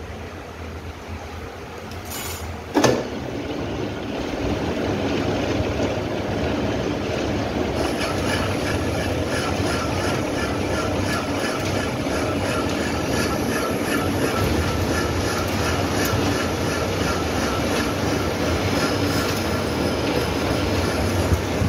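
Metal lathe: a single sharp knock about three seconds in, then the machine running louder and steadily with an even rhythmic clatter from its gearing while the turning tool faces a large metal disc held in the chuck.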